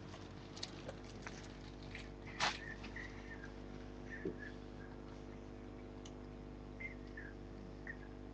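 A steady electrical hum, typical of an aquarium's filter or pump, with scattered clicks and one louder knock about two and a half seconds in as the webcam is handled and moved. A few short, faint high chirps come through between them.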